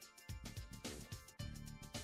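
Background music with drum hits over a bass line.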